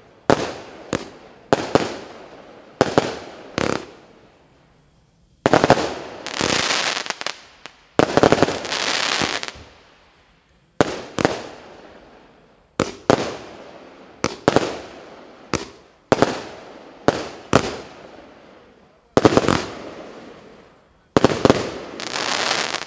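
Combined firework cake (battery) firing shot after shot. Sharp reports come about a second apart, each followed by a fading crackle, and there are three longer dense crackling volleys: one about six seconds in, one about nine seconds in and one near the end.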